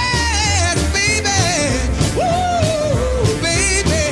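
Background music: a song with a singer's voice holding wavering notes over a steady bass beat.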